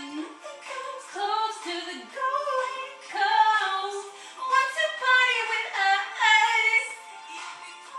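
A woman singing a pop melody, the notes sliding up and down in short phrases.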